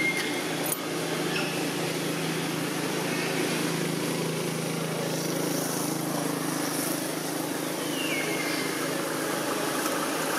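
Steady hum of an idling engine over outdoor background noise, with a short high note that falls in pitch about eight seconds in.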